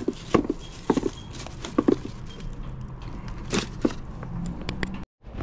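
Tools, boxes and papers being handled and set down by hand: scattered short knocks and clicks at irregular intervals with some rustling. The sound cuts out for a moment near the end.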